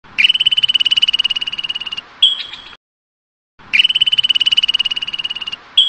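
Squirrel chattering call: a rapid, high-pitched pulsing trill lasting nearly two seconds, ending in a few short chirps. The call is heard twice, the second starting a little past halfway.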